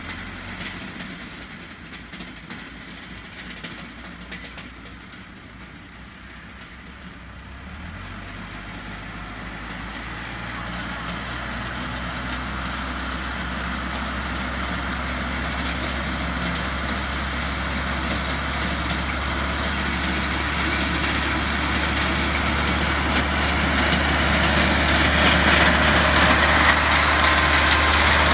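Small tractor with a front-mounted five-belt sesame reaper, its engine running with a steady low hum that grows louder as it comes closer through the crop. Near the end the sound gets much brighter and louder as the machine reaches the camera.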